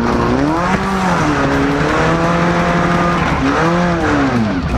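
Compact four-cylinder derby car's engine revving hard, heard close from the car itself: the pitch rises, holds and falls, then rises and falls again.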